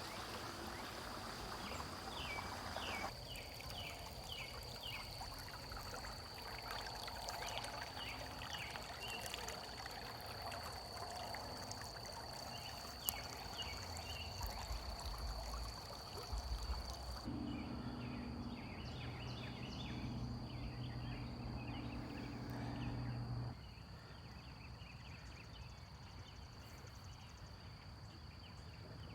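Creek water running, with short repeated bird chirps over it. The background changes abruptly a few times.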